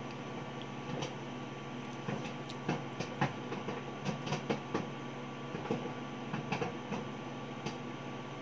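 Popcorn kernels popping inside a running Sharp microwave oven: scattered sharp pops, a dozen or so at irregular intervals, over the oven's steady hum.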